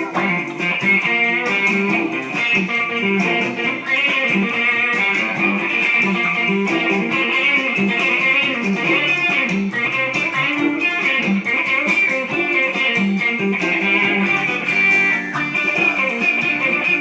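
Guitar playing a blues: a steady, unbroken run of plucked notes and chords, with no bass and no singing.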